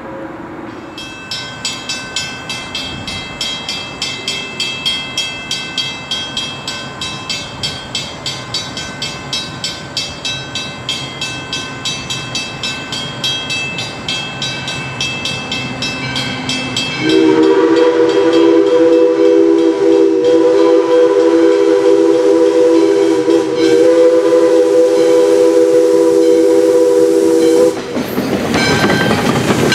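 Grade-crossing signal bell ringing steadily as steam locomotive No. 40, a 2-8-2 Mikado, approaches; then the locomotive sounds its steam chime whistle in one long blast of about ten seconds for the crossing. Near the end the engine passes close by with a rush of noise from its running gear and wheels on the rails.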